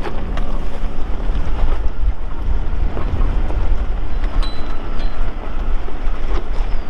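Nissan Pathfinder running under load while crawling over rocks: a steady low rumble with wind buffeting the microphone, and a few scattered knocks.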